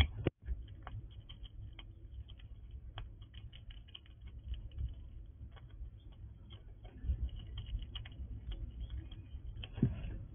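Squirrel cracking and chewing sunflower seeds: a rapid, irregular run of small crunchy clicks, with a louder rustling burst near the end.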